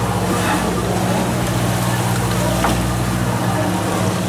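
Fishing boat's engine running steadily with a low, even hum, under a constant wash of wind and water noise.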